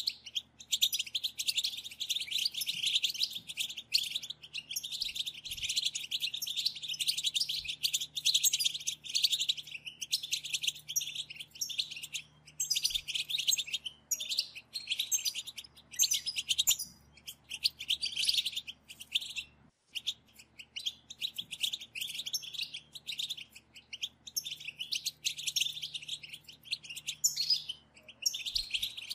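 A group of European goldfinches giving the fast chattering 'batbata' call typical of female goldfinches. Many birds overlap in dense, high twittering, broken by a few short pauses.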